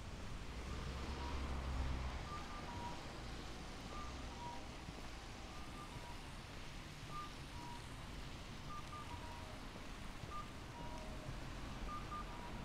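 Electronic cuckoo-call tones of a Japanese audible pedestrian crossing signal. Short two-note chirps, a higher note then a lower one, sometimes with the higher note doubled, repeat about every second and a half, which marks the crossing as open to walk. A vehicle's low rumble passes in the first few seconds under a steady street hum.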